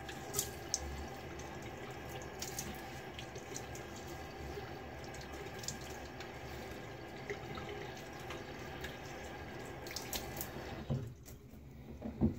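Bathroom sink tap running steadily, with a few light clicks and knocks, stopping shortly before the end.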